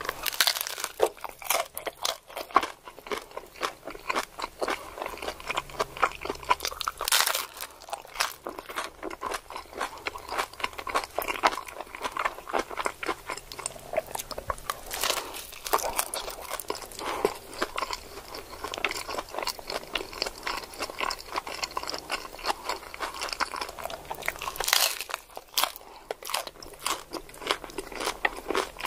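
Crunching and chewing of a hard-shell taco: a steady run of crisp crunches, with a few louder bites along the way.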